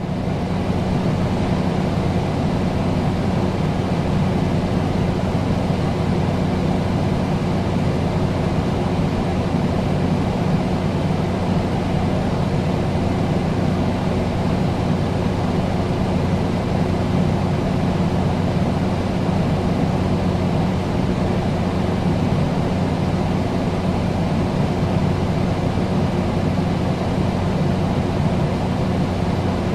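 Air conditioner running steadily: an even rush of fan air over a low, constant motor hum.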